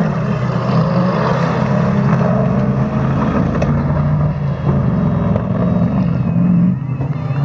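Engine of an autocross racing truck running hard on a dirt track, a steady drone whose pitch steps up and down as it is driven through the course.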